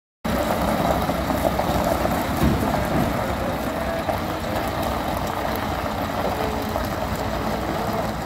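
Semi-truck's diesel engine running steadily as the day-cab tractor pulls a container chassis slowly across gravel. It cuts in sharply just after the start.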